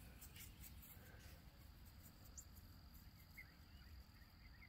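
Near silence: faint outdoor ambience with a steady high insect drone, joined by faint short chirps from about three seconds in.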